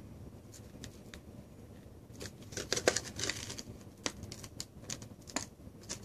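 Hard plastic clamshell packaging of a RAM stick being pried and pulled open: faint at first, then a run of crackling and sharp plastic clicks from about two seconds in, loudest around three seconds.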